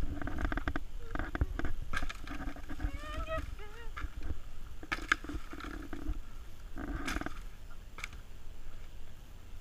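Indistinct voices in short, unclear snatches over a steady low rumble.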